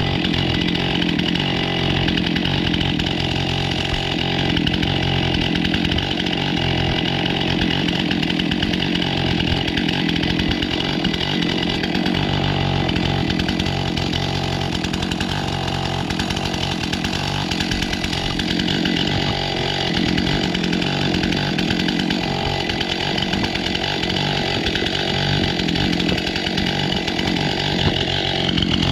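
Chainsaw running steadily at high speed, cutting cherry wood.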